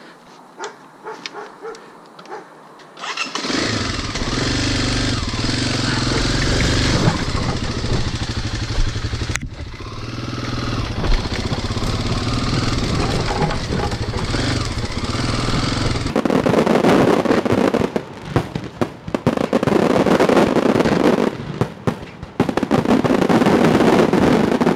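A Kawasaki dirt bike's engine starts about three seconds in and keeps running as the bike moves off. After about sixteen seconds it gives way to fireworks, a dense run of bangs and crackles.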